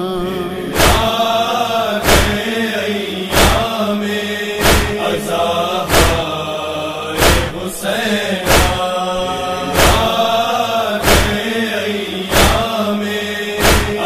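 Voices chanting a Muharram lament for Hussain, with a loud beat struck in time about every 1.3 seconds.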